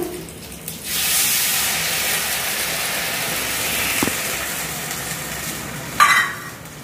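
Water poured into a kadai of hot oil with curry leaves and sugar bursts into loud sizzling about a second in, then settles to a steady hiss that slowly dies down. A short metallic clink comes near the end.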